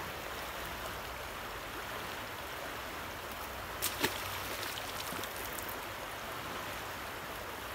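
Steady rushing of fast, rough river current running past a steep bank. A couple of short sharp knocks about four seconds in.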